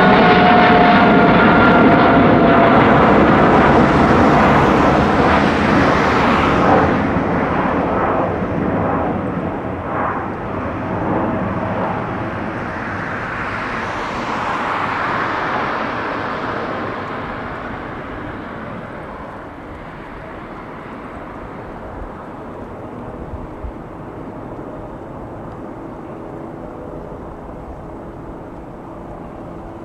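Boeing 777-300ER's twin GE90 turbofans climbing out just after takeoff: a loud jet roar with a whine in it at first. It fades steadily as the airliner climbs away, settling to a faint distant rumble over the last ten seconds.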